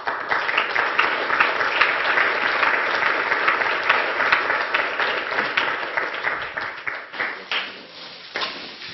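Audience applauding, a dense patter of many hands clapping that thins out to a few scattered claps near the end.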